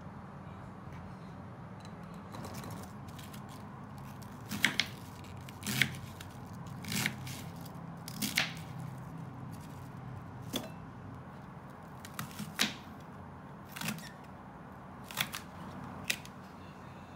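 Kitchen knife slicing through cabbage and green onion stalks, striking a bamboo cutting board with sharp knocks. The strikes start about four and a half seconds in and come irregularly, roughly one a second, often in quick pairs.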